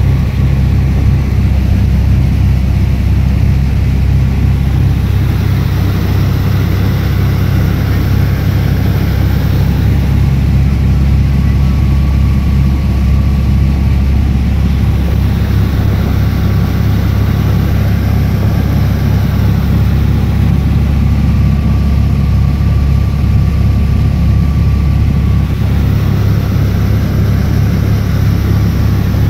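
Engine of a small fiberglass passenger boat running steadily at cruising speed, a loud low drone with the rush of water and wind over it.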